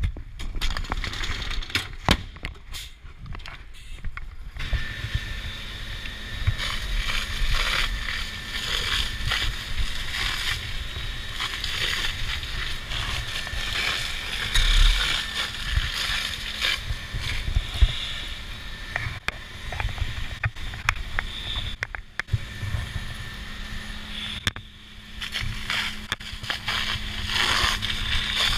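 Knocks and clatter for the first few seconds. Then a fire hose sprays water onto a burning car as a steady, dense hiss over a steady low hum.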